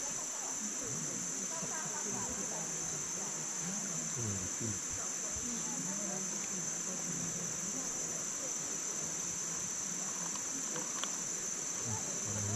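Rainforest insects' chorus: a steady, unbroken high-pitched drone.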